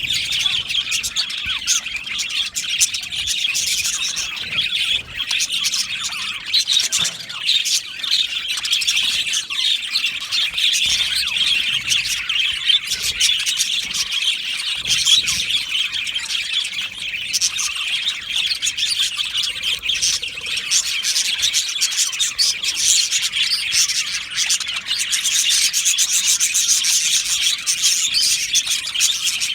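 A flock of budgerigars chattering: many birds' chirps and warbling song overlapping in a continuous, dense chorus.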